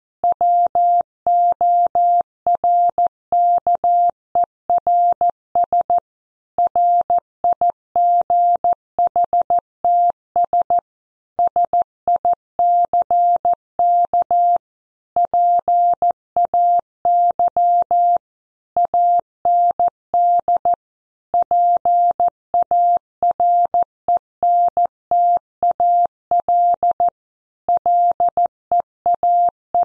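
Computer-generated Morse code at 14 words per minute: a single steady beep keyed on and off in dots and dashes, with short pauses between words, spelling out a news headline that begins "Workers' rights, sick pay…".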